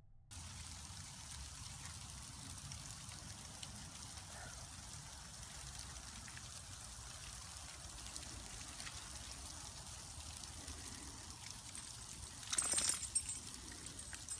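Steady outdoor background noise, an even hiss with a low rumble, with a brief louder rustle near the end.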